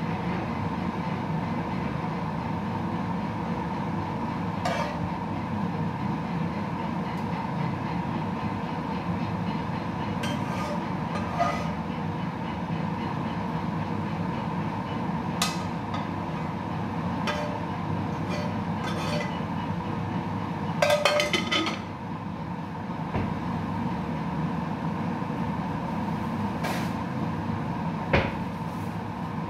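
Steady mechanical hum with light clinks and knocks scattered through it, and a short clatter about two-thirds of the way through.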